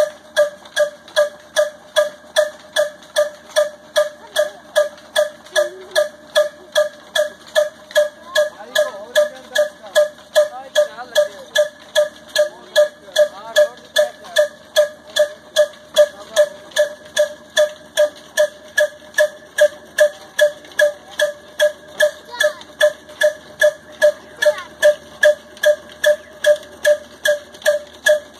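Old black desi single-cylinder slow-speed diesel engine running under load, driving a flour mill: a steady, slow beat of firing strokes, about two and a half a second.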